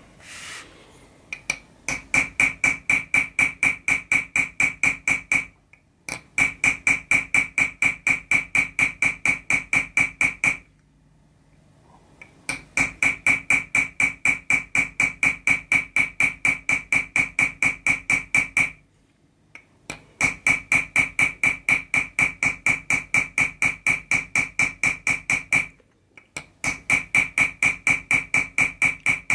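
Chasing hammer tapping a steel chasing tool on 0.6 mm copper sheet set in chaser's pitch, in quick even strokes about five a second, each with a high metallic ring. The tapping comes in runs of several seconds with brief pauses, the longest about eleven seconds in.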